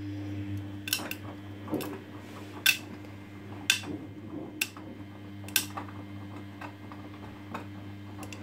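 Front-loading washing machine turning its drum through the wash phase, with a steady motor hum. Sharp clicks come about once a second, from the hard fittings of the jackets and jeans knocking against the drum as it turns.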